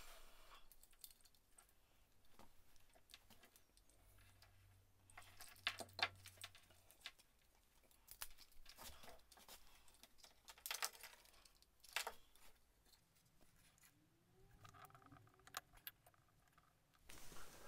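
Near silence, with faint scattered clicks and small rattles of hands handling wires and plastic connectors.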